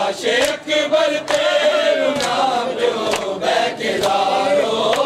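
A group of men chanting a noha (Shia lament) in unison, with sharp hand slaps of matam (chest-beating) keeping time about once a second.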